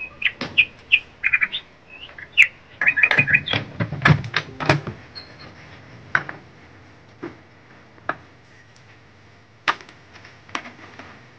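Birds chirping in quick short calls through the first few seconds, mixed with sharp knocks and clicks as a wooden door is shut and bolted; scattered clicks follow later.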